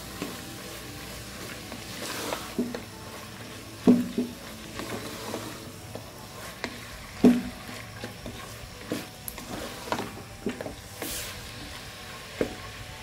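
Wooden spatula stirring soaked chana dal (split chickpeas) through frying masala in a metal pressure cooker, scraping and knocking against the pot every second or two, loudest about four and seven seconds in, over a soft sizzle of the frying.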